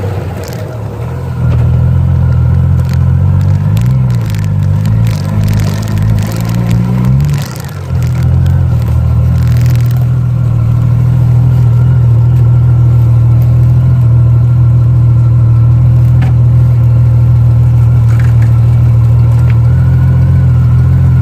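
Honda Goldwing GL1500's flat-six engine having its throttle opened: the engine note rises and wavers for a few seconds, drops back sharply about seven seconds in, then runs steadily. It is a throttle-response test after carburettor tuning and new spark plugs, checking for hesitation.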